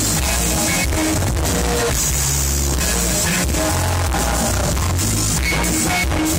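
A live band playing loud amplified music through a PA system, with heavy bass notes and regular drum hits.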